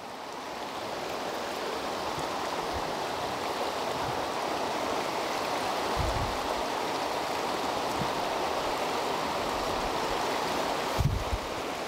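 A steady rushing noise, with a few soft thuds of a knife slicing green bell pepper on a wooden cutting board, about six seconds in and again near the end.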